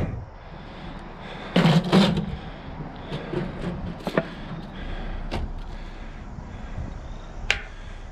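Trash being shifted by hand in a dumpster: cardboard and plastic rustling, with scattered knocks and clicks. The loudest is a cluster of thumps about two seconds in.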